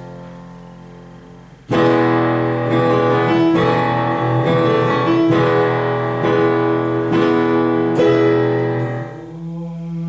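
Piano playing chords. A held chord fades away, then about two seconds in a louder run of chords begins, a new chord struck roughly every second, dipping briefly near the end.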